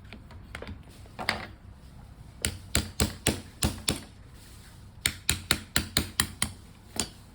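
Sharp metallic clicks of an airsoft pistol's parts being worked by hand, in two quick runs of about six or seven clicks each, roughly three a second, with a last single click near the end.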